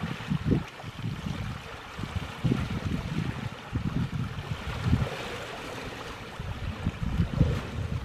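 River water flowing and sloshing around a wading elephant's legs, with irregular low rumbles of wind on the microphone.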